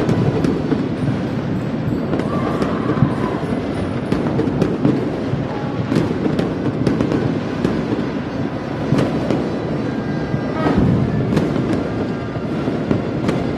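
New Year's fireworks and firecrackers going off in a dense, continuous barrage: a steady din of rumbling and crackling with many sharp bangs throughout.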